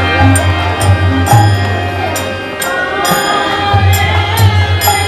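Bengali devotional kirtan: group singing with metal hand cymbals (kartal) struck about twice a second over deep drum strokes.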